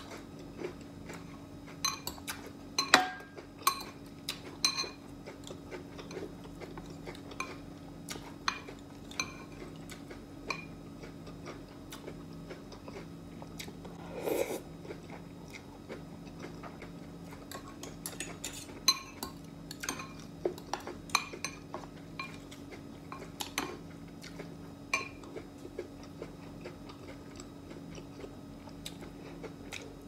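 Close-miked eating sounds: a fork clinking against a glass bowl and chewing, heard as scattered sharp clicks over a faint steady hum.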